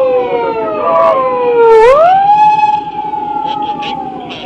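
Emergency vehicle's wailing siren: its pitch slides slowly down, sweeps back up about two seconds in, holds, then falls again. A low steady rumble runs underneath.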